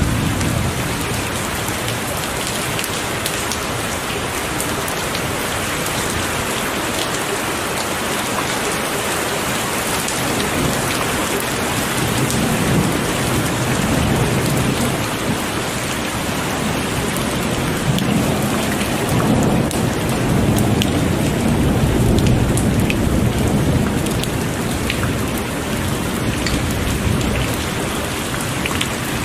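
Heavy rain pouring steadily, with drops ticking sharply here and there. Low thunder rumbles swell and fade about halfway through and again a few seconds later.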